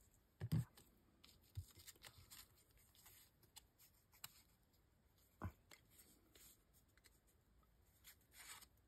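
Quiet handling of kraft cardboard and small craft tools on a cutting mat: a soft knock about half a second in as something is set down, another near the middle, and faint paper rustling between.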